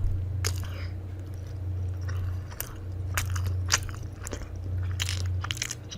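A person eating, biting and chewing crunchy food: irregular crunching clicks a few times a second, over a steady low hum.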